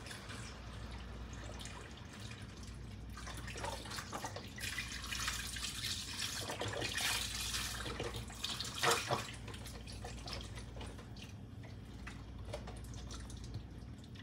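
Liquid running and dripping at a kitchen counter, strongest in the middle of the stretch, with a couple of light knocks near the middle and a steady low hum underneath.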